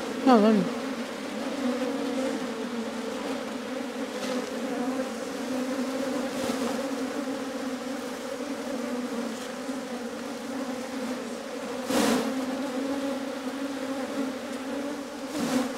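A dense mass of honeybees buzzing close by in a steady, even low hum. A short sharp knock cuts across it about twelve seconds in.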